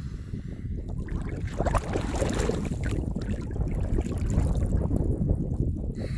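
Water splashing and bubbling around a swimmer who ducks his head underwater, close to the camera at the surface. The splashes are thickest about two seconds in, over a steady low rumble.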